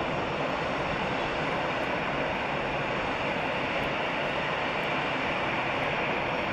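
Airbus A319 twin jet engines running at taxi power: a steady, even rush of engine noise with no change in pitch.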